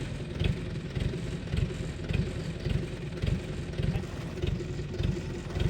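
Yanmar 850 combine harvester running, its engine giving a steady hum.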